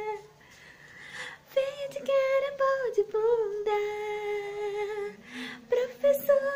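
A woman singing a wordless tune in long held notes, with a short pause at the start.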